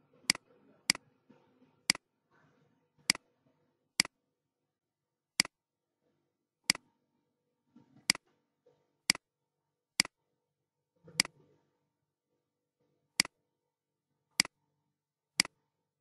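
Computer mouse clicking: about fourteen sharp single clicks, spaced irregularly one to two seconds apart.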